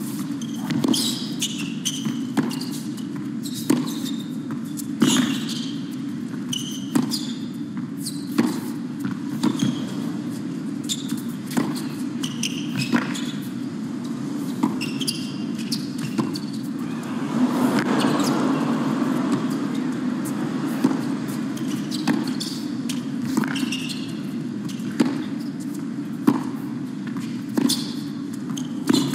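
Tennis rally on an indoor hard court: a ball struck by racquets and bouncing, sharp pops about once a second, over the low hum of an arena crowd. The crowd noise swells briefly about two-thirds of the way through.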